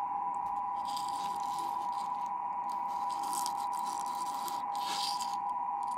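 A steady electronic tone near 1 kHz, held without a break, with a few faint scraping noises over it.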